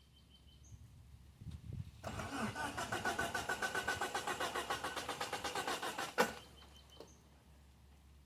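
Mitsubishi Eclipse GST's 4G63 engine being cranked by its starter motor, jumped with a screwdriver because the key switch doesn't work. It cranks in even pulses, about seven a second, for roughly four seconds without catching, and cuts off with a sharp snap.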